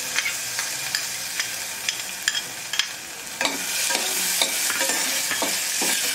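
Soaked sago pearls going into a steel pot greased with ghee, with light metal clinks about twice a second, then from about halfway a metal spoon scraping and stirring the pearls against the steel pot. A steady hiss runs underneath and grows louder once the stirring starts.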